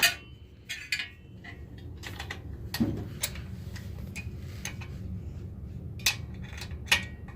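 Metal hand tools clicking and clinking against each other and the engine as a bolt is worked on: about eight separate sharp clicks, spaced unevenly, with a dull knock about three seconds in.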